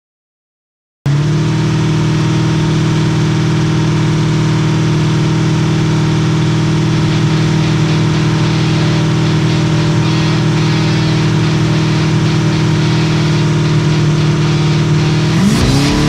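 Off-road race car's engine idling steadily, heard from inside the cab, after about a second of silence. Near the end it revs up, the pitch climbing quickly.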